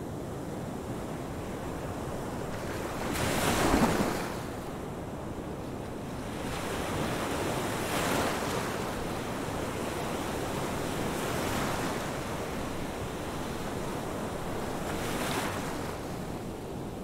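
Ocean surf: waves wash in about every three to four seconds over a steady rushing hiss, the loudest one about four seconds in.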